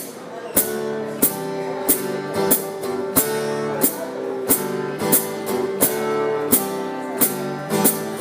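Acoustic guitar strumming chords as a song's instrumental intro, over a steady percussion beat of about one and a half sharp hits a second.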